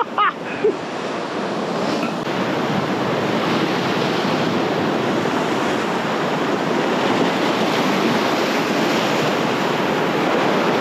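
Ocean surf washing over and around shoreline rocks: a steady rush of breaking, foaming water.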